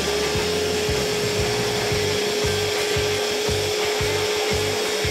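Small electric mini chopper running at a steady speed with a steady whine, its motor held on by hand pressure on the top, blending sugar and vegetable oil.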